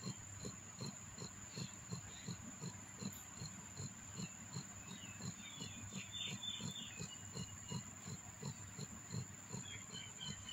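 Newborn kittens suckling at their mother cat: soft rhythmic sucking clicks about three or four a second, with a few faint high chirps around the middle and again near the end.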